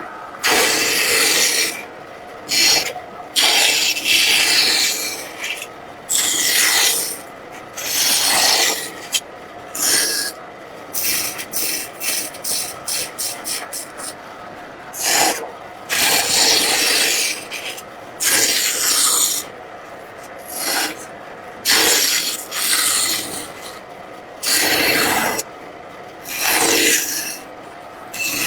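A hand tool scraping across wood in repeated, uneven strokes, each lasting about half a second to a second and a half, with short pauses between them.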